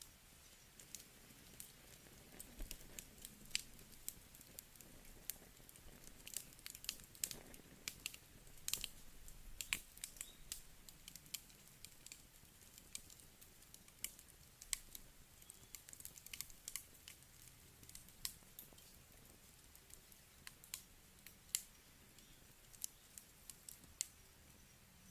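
Wood campfire crackling: irregular sharp pops and snaps of burning wood over a faint low hiss, coming thickest about a quarter to halfway through and again around two thirds of the way in.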